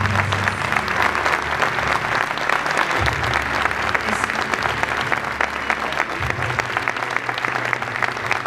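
An audience applauding, many hands clapping in a dense, steady patter.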